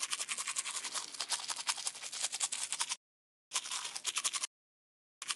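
Toothbrush scrubbing sound effect: quick back-and-forth brushing strokes on teeth, in three bursts with short breaks about three seconds in and again about four and a half seconds in.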